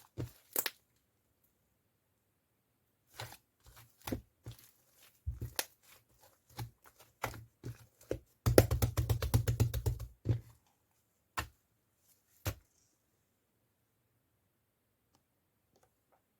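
Scattered sharp clicks and taps, with a fast run of about ten ticks a second lasting nearly two seconds around the middle.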